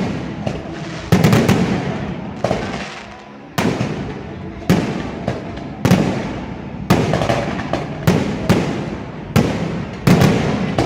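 Fireworks bursting: about ten loud bangs, roughly one a second, each trailing off before the next.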